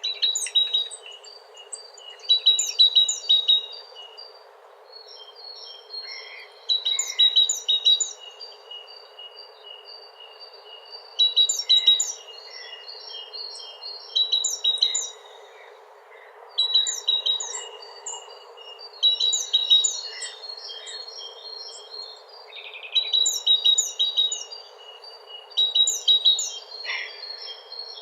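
Songbirds singing: short phrases of rapid, high chirping notes, repeated every few seconds, over a steady faint background hiss.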